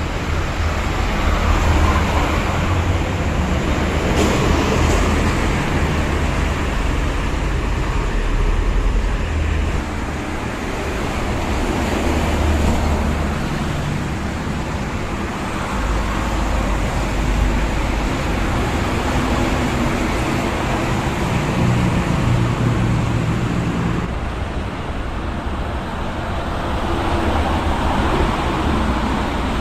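Motorway traffic passing close by: continuous tyre noise and engine rumble from cars and heavy vehicles, swelling and fading as each one goes by.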